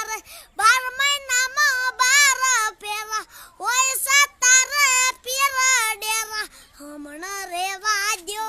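A young boy singing a Gujarati song unaccompanied. He sings in short phrases of wavering, ornamented notes with brief breaks between them. Near the end a lower phrase is held.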